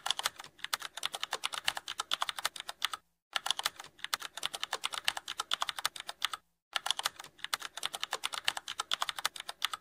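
Rapid computer keyboard typing: a fast, steady run of key clicks, with two brief pauses, about three seconds in and again about six and a half seconds in.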